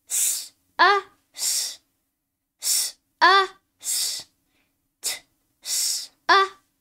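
A young boy sounds out single phonics letter sounds with short pauses between them: "sss, uh, sss", again "sss, uh, sss", then a brief "t", "sss", "uh". Each "sss" is a hiss, and each "uh" is a short voiced syllable that drops in pitch.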